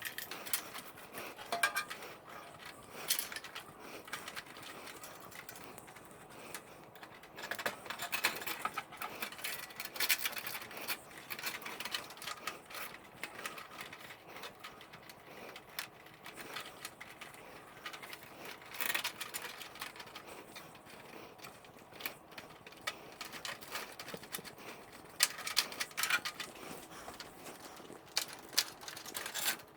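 Irregular clicks, light rattles and rustling of hands handling cables and hardware inside a computer case.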